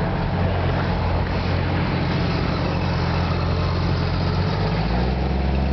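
An engine running steadily with a low drone, its note dropping a little near the end.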